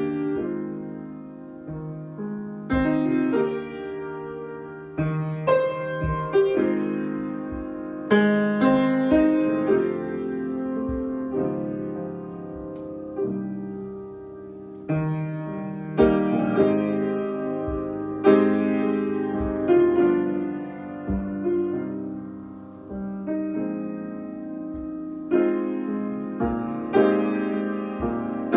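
Solo piano improvisation: chords struck every second or so and left to ring and fade, now sparse and soft, now in louder clusters.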